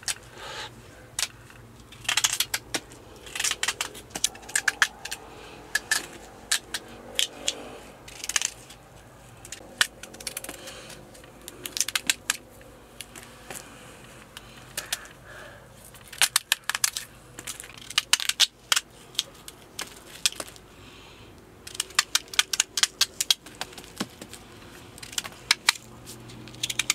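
Irregular clinks and clatters of metal kitchenware being handled, small sharp knocks coming in quick clusters.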